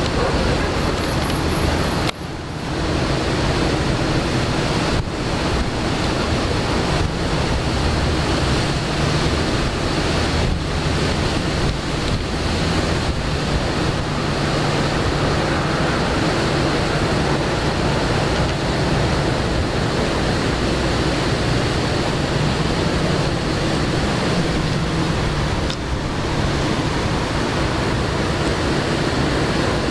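Strong wind blowing against the microphone: a steady rushing noise, with a brief dip about two seconds in.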